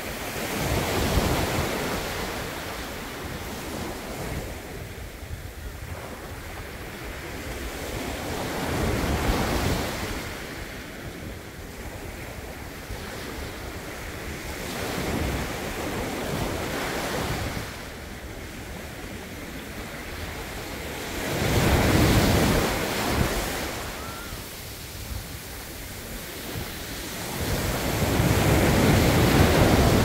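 Small sea waves breaking and washing up a sandy beach: a steady rush of surf that swells and ebbs about five times, the last two surges the loudest.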